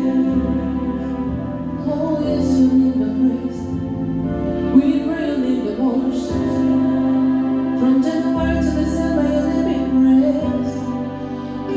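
Music: a keyboard holding sustained chords over a low bass, with voices singing a slow, gentle melody.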